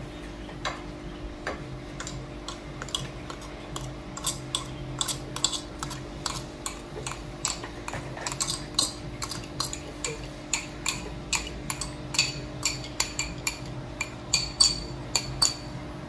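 Metal spoon scraping and tapping against a ceramic bowl while scooping cooked oatmeal out onto a plate: a quick run of clinks, about two to three a second, coming thicker and louder after about four seconds. A steady low hum runs underneath.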